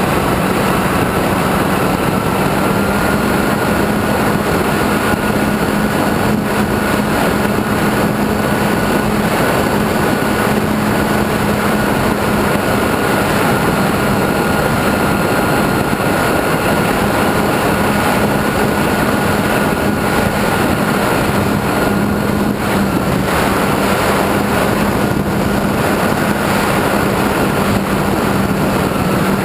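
Electric motor and propeller of an E-flite Apprentice RC trainer plane running at a steady cruise whine, heard from an onboard camera over heavy airflow noise; the pitch rises slightly a few seconds in, then holds.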